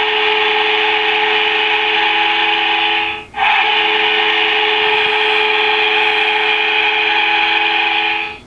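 Goal horn played through the Fan Fever NHL goal light's built-in speaker, signalling a scored goal: a long, steady blast of several held tones, broken once about three seconds in, then a second long blast that cuts off just before the end.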